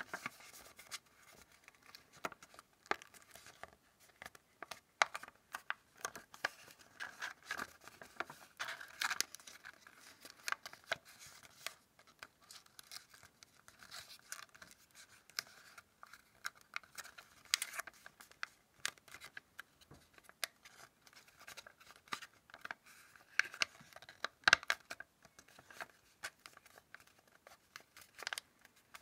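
Origami paper being folded and creased by hand: irregular rustling and crackling of the paper, with sharper snaps as creases are pressed down.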